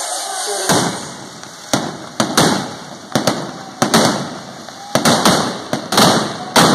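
Fireworks going off in a run of sharp bangs and cracks, starting about a second in and coming at irregular spacing of roughly half a second to a second, over a steady fizzing hiss.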